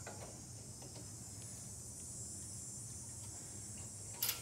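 Faint handling noise of a small-engine carburetor being worked free from its linkage: a few light clicks, then one short, sharp metallic scrape near the end as the carburetor comes loose.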